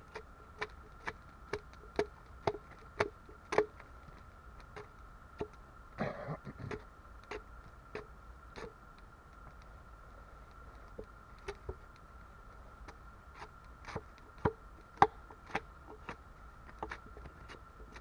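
Hatchet blows chopping into a log, sharp dry knocks coming quickly at about two a second at first, then more scattered, with the loudest strike about three seconds before the end. A brief rustle comes around six seconds in.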